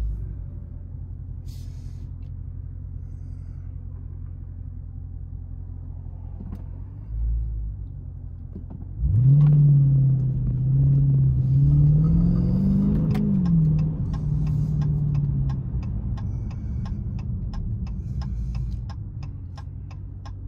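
Dodge Scat Pack's 6.4-litre HEMI V8, breathing through a Hellcat airbox, idling with a low rumble; about nine seconds in it pulls away, the engine note rising as it accelerates, then easing back and settling. A regular fast ticking starts about two-thirds of the way through.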